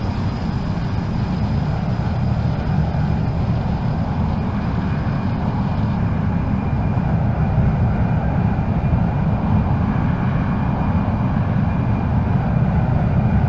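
Steady jet engine noise from a large four-engine transport aircraft in flight, getting slightly louder in the second half.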